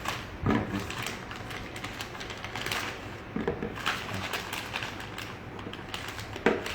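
Small clicks and rustles of a handlebar bag's plastic adapters and straps being handled, with a brief murmur of voice now and then.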